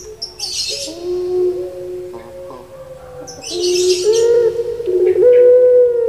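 Puter pelung (Barbary dove) cooing in long, drawn-out, resonant notes that slide slowly in pitch, loudest in the second half. Twice there is a short hissy sound higher up.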